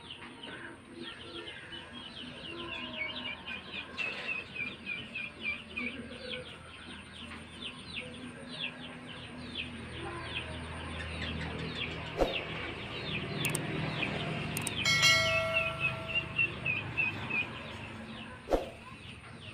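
Birds chirping nonstop, many short falling chirps in quick succession. About fifteen seconds in comes one brief steady-pitched call, and there are two sharp knocks. No full rooster crow is heard.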